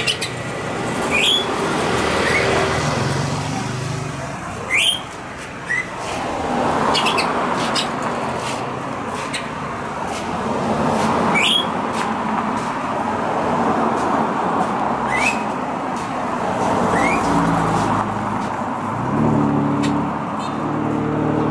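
Street traffic, with motor vehicles passing and their engines swelling and fading. A bird gives short rising chirps about six times.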